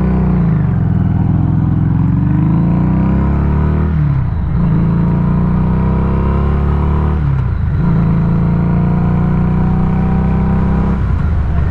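Harley-Davidson Street 500 V-twin motorcycle engine pulling hard under acceleration, heard from the rider's seat. Its pitch climbs, drops briefly three times as the rider shifts up, and climbs again after each shift.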